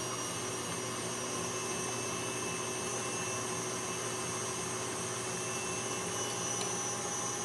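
KitchenAid stand mixer running steadily, its whisk beating whipped cream with condensed milk in a steel bowl.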